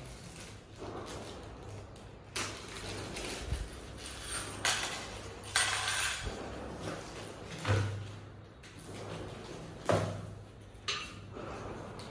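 Handling noise from assembling an office chair: a plastic bag of hardware rustling, loose metal bolts clinking on a tile floor, and a few sharp knocks as chair parts are picked up and set down.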